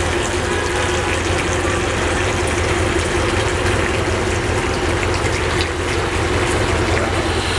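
Water running steadily from a tap into a large metal cauldron of cattle feet, with a steady low hum underneath.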